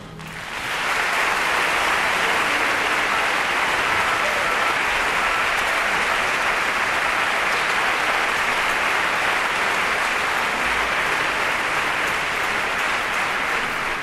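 Large theatre audience applauding, swelling in the first second and then holding steady and dense.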